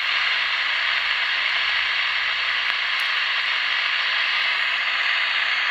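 Steady static hiss from a tube-type Demco Revelle 23 CB radio's speaker on an open, empty channel. It comes on the moment the transmission ends and holds at a constant level.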